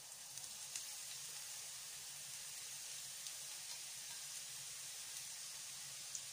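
Grated carrot frying in a pan: a steady soft sizzle with a few faint crackles.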